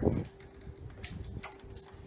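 Quiet room tone with a faint steady hum, and a few light taps and rubs of hands handling a wooden bucket and its bands.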